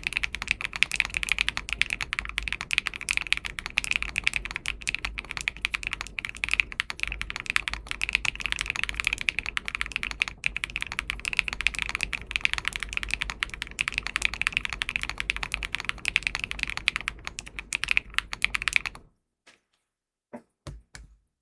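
Fast, continuous typing on a 40% custom mechanical keyboard with Wingtree Anon switches and MW Fuyu keycaps. The typing stops suddenly near the end, followed by a few separate keystrokes.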